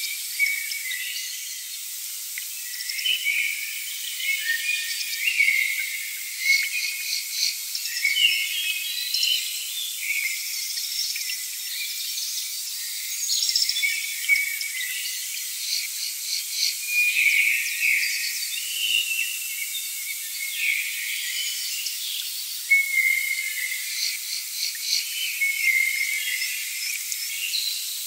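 Outdoor chorus of insects trilling and birds chirping: many short chirps mixed with fast, even insect pulses, all high-pitched with no low sound at all.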